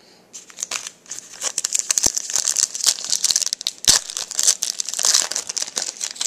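Crinkling and tearing of a trading-card pack's wrapper as it is handled and torn open: a dense, fairly loud crackle that starts about half a second in.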